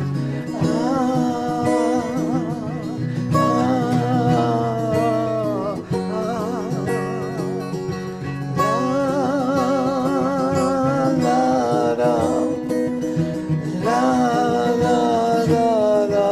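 Acoustic guitar accompanying a sung melody, held in long phrases with a wide vibrato, three phrases with short breaks between them.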